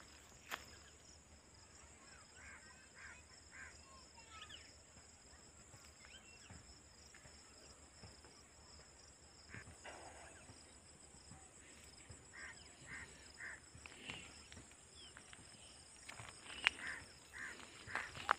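Field insects giving a faint, steady high-pitched trill, with a few short series of chirps now and then and some sharp clicks and rustles, loudest near the end.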